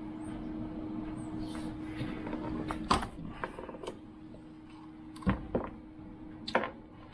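Sharp metallic clicks and knocks from a benchtop chainsaw-chain breaker as its punch is pressed through a chain rivet to break off the rivet head, with the loose chain clinking; about half a dozen, the loudest about three seconds in and again a little after five seconds.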